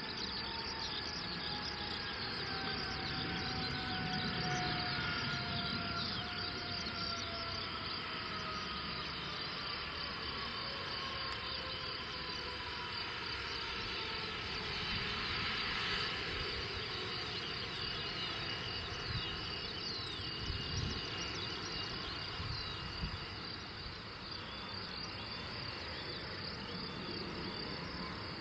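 The four turbofan jet engines (Lycoming ALF 502) of a BAe 146-200 whine steadily, falling in pitch as the airliner slows on its landing rollout, and rise again near the end. Insects chirp throughout.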